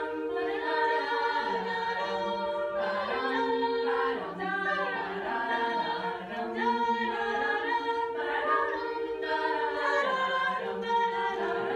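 Female a cappella group singing in close harmony without instruments: a steady high note held over lower voices that move from chord to chord.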